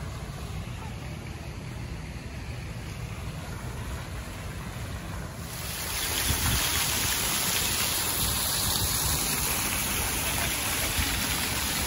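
Wind rumbling on the microphone outdoors, joined about five and a half seconds in by a louder steady rushing hiss.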